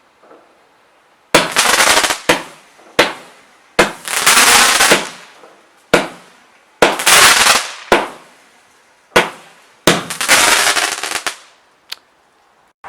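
Consumer firework shots: about seven sharp bangs spaced one to two seconds apart, several trailed by roughly a second of rushing hiss, with a few smaller pops between them.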